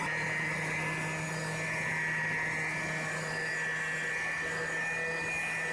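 Small electric power tool running steadily: a constant motor hum with a higher whine above it, as in grinding or sanding rust from a steel cleaver blade.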